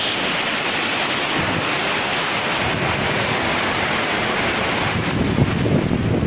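Rushing water flowing steadily, with wind buffeting the microphone that grows stronger and gustier near the end.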